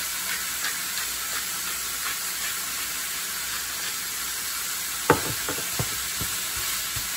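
Ground beef sizzling in a hot frying pan, a steady hiss, with a sharp knock of a spatula against the pan about five seconds in and a few lighter taps after it.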